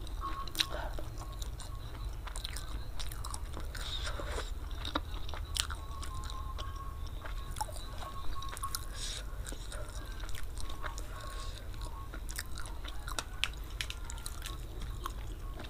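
Close-miked chewing of spicy fried flat rice noodles (kway teow), with irregular wet mouth clicks and smacks, over a steady low hum.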